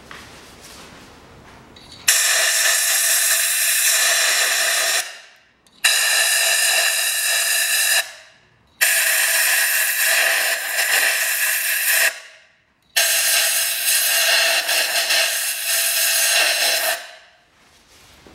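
Compressed-air blow gun blasting into the spark plug wells of a 2.0 petrol engine to clear out dirt before the plugs are removed. There are four long, loud hissing blasts of a few seconds each with short breaks between, and a faint whistle runs through the hiss.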